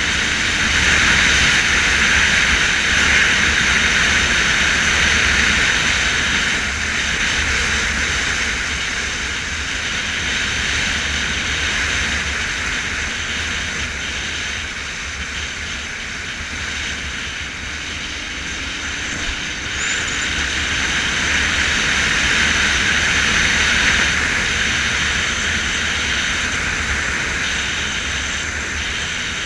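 Riding a motorcycle at road speed: steady wind rush and road noise with the engine running underneath. It is loudest in the first few seconds, eases off in the middle and rises again about twenty seconds in.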